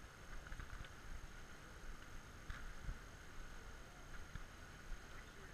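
Faint outdoor background noise: an uneven low rumble with a steady faint hiss and a couple of light clicks.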